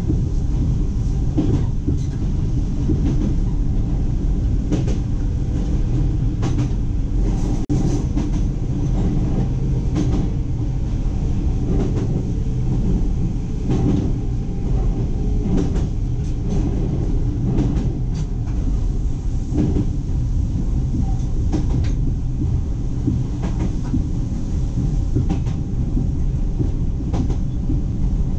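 Electric train running steadily along the track, heard from inside the front of the train: a continuous rumble of wheels and running gear, with irregular sharp clacks of the wheels over rail joints.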